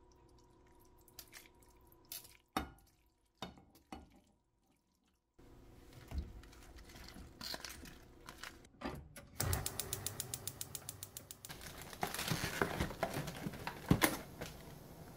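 Kitchen handling sounds: light knocks and clinks as a steel mesh strainer and a plastic colander tip noodles, mushrooms and greens into a pot. About two-thirds of the way through there is a quick even run of ticks, and plastic packaging crinkles near the end.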